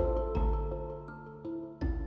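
Instrumental background music: pitched notes struck and left to ring over a deep bass, fading a little before new notes come in near the end.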